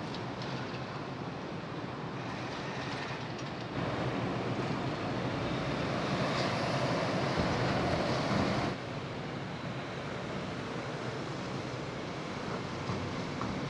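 Steady rushing ambience of a car ferry's open deck in port, wind and ship's machinery noise mixed, growing louder for about five seconds in the middle.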